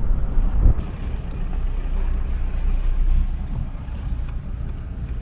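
Steady low rumble of a moving vehicle, with a single thump less than a second in.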